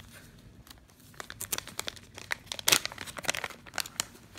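Plastic bag of soft-plastic trick worms crinkling as hands pull it open: a quick run of sharp crackles starting about a second in, loudest near the middle.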